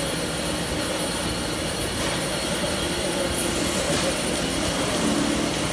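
CNC drilling head's spindle running with the bit drilling into sheet metal, a steady mechanical drone with faint wavering tones.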